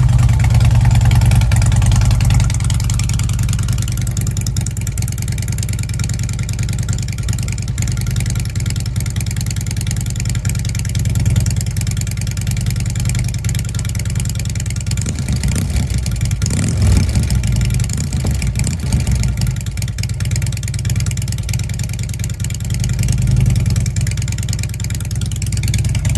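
Fuel-injected Harley-Davidson Ultra Classic V-twin engine idling steadily, with small swells in loudness now and then.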